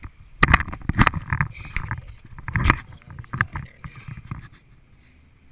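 Knocks and rustling as someone climbs into the driver's seat of a Ford pickup. There are sharp knocks about half a second and a second in, and a heavier thump near the middle.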